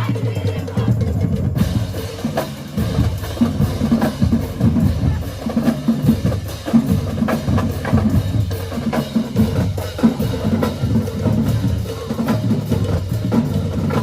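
Marching band drumline playing a continuous percussion passage, with snare and bass drums, dense strikes throughout.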